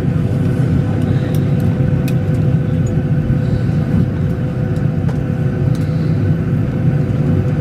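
Steady cabin air-conditioning rumble inside a parked Boeing 737-800, with a constant hum over a low roar and a few faint clicks.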